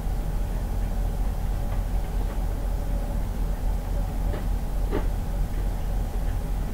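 Steady low rumble and hum of background noise, with a couple of faint clicks about four and five seconds in.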